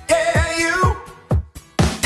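Pop music with singing and a beat, with a brief drop in loudness about a second and a half in.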